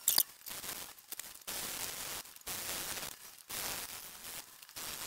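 Paper towel wet with acetone scrubbed back and forth over an etched copper circuit board, repeated scrubbing strokes about one a second, wiping off the leftover toner resist.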